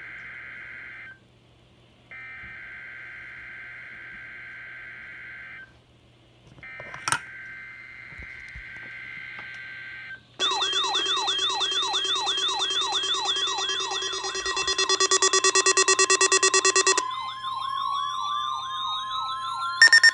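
Emergency Alert System data header bursts: three screechy digital bursts a second or so apart. Then loud overlapping alert alarms: two wavering siren-like tones over a pulsing buzz, giving way a few seconds before the end to a steady single-pitch alert tone with rising glides and a loud buzzing tone.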